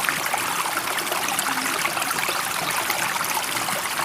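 Running water babbling steadily, an even wash of small splashes with no rise and fall of waves.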